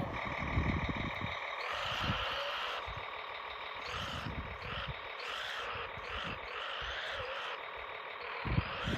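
Radio-controlled tracked snow vehicle's electric drive whining. The pitch rises and falls as the throttle changes, mostly in the second half, with irregular low rumbles underneath.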